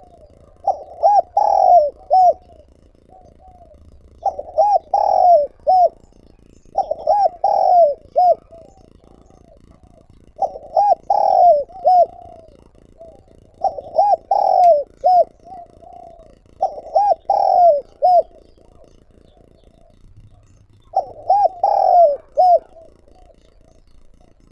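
Spotted dove (chim cu gáy) singing its cooing song, a phrase of several coo notes repeated about seven times, roughly every three to four seconds. This is the male's calling song, used as a decoy call.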